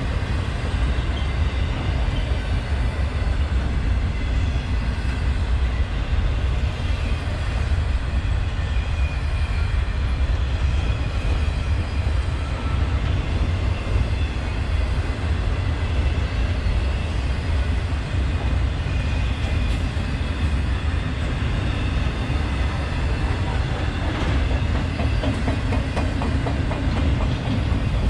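Freight train of autorack cars rolling past: a steady rumble of steel wheels on the rails, with a run of clicking from wheels passing over rail joints about 24 seconds in.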